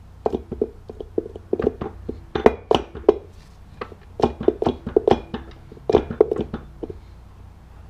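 Steel transmission parts clinking and knocking with short metallic rings inside a Ford E4OD transmission case, as the sun gear is worked at by hand and will not pull out.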